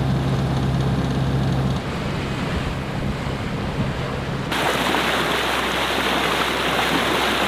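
Sailboat under engine power in calm water: a steady engine hum with water noise, then about halfway through a sudden switch to a louder rush of water as the bow wave breaks and foams along the hull.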